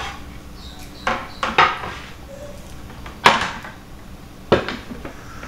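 A wooden cutting board and a metal serving tray knock and clatter as they are moved and set down on a tabletop. There are a few light knocks about a second in, a sharper clatter, the loudest, a little past three seconds in, and two more knocks about four and a half seconds in.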